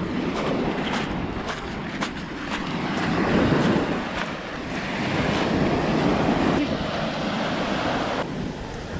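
Sea surf washing up on the beach, swelling twice and falling back, with wind buffeting the microphone.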